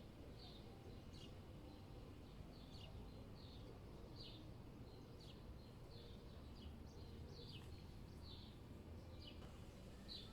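A small songbird chirping faintly and steadily, short high chirps that fall in pitch, about two a second, over a low steady city rumble.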